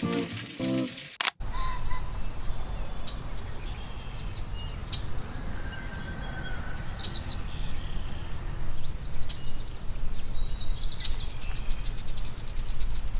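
Songbird singing outdoors in several short, rapid trilled phrases, over a steady low rumble of outdoor noise. Background music plays briefly before a cut about a second in.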